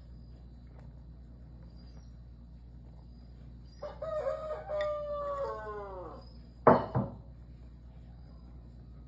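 A rooster crowing once, a single call of about two and a half seconds that holds its pitch and then falls away at the end. Two short, sharp, loud sounds follow close together just after the crow.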